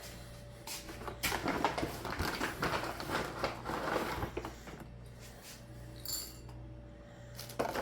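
Dry clinking and rattling at a cat's food dish for about three seconds, then quieter, with a brief high squeak near the end.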